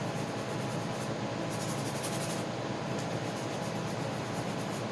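Sandpaper rubbing back and forth over a car bumper in runs of quick strokes with short pauses between them. The bumper's old coat is being sanded off to get it ready for paint.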